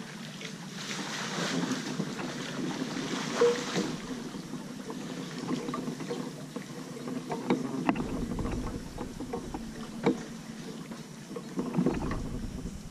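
Kayak paddling: paddle blades splashing steadily through the water, with a few sharp knocks. Wind gusts on the microphone near the end.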